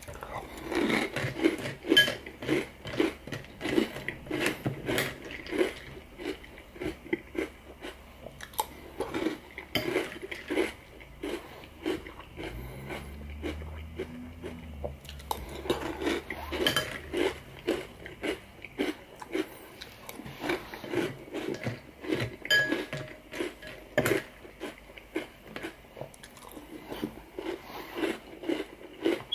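A person chewing mouthfuls of Cocoa Puffs cereal in milk close to the microphone: many small crunches in quick succession, with the occasional clink of a metal spoon against the bowl.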